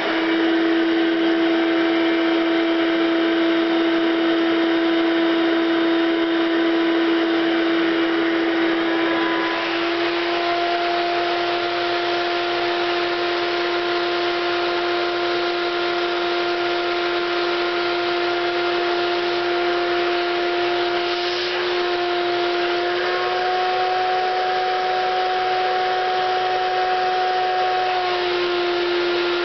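Vacuum cleaner motor running with a steady whine, sucking air through a homemade vacuum-forming table that pulls a heated plastic sheet down over the form. The whine steps up slightly in pitch a few times and drops back a little near the end.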